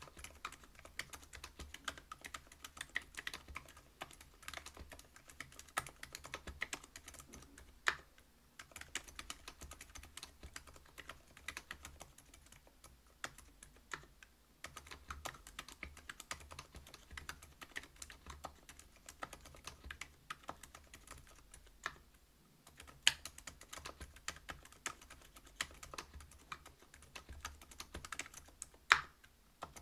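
Typing on a Whale 75 mechanical keyboard with stock Silent Alpaca 62 g linear switches, a brass plate and PBT keycaps. The keystrokes are quick and irregular, with a few brief pauses and a handful of noticeably louder single strokes.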